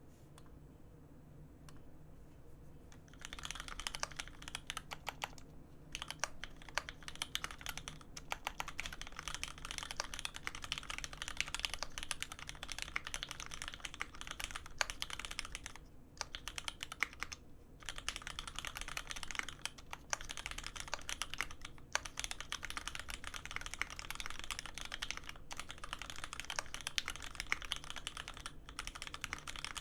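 Fast typing on a custom mechanical keyboard with lubed Cherry Hyperglide Black linear switches on 70 g springs, an aluminium plate and GMK keycaps: rapid keystroke clacks, with a few short pauses. The typing starts about three seconds in.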